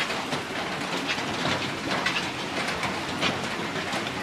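Heavy rain falling: a steady hiss with irregular louder drips and splashes.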